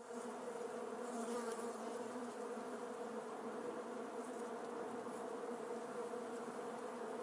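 Bees buzzing in a steady drone.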